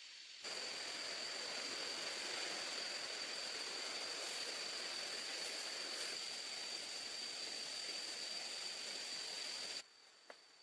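Steady rush of water in a jungle setting, starting suddenly about half a second in and cutting off suddenly near the end, over a constant high-pitched whine.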